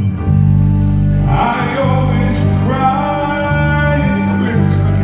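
Music: a song with sustained low notes and a singing voice over a guitar accompaniment.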